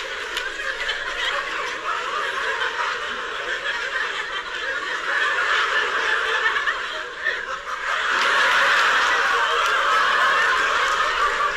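A live audience laughing together, the laughter growing louder about eight seconds in.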